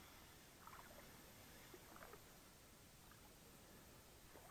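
Near silence: a faint steady hiss with a few faint, brief sounds.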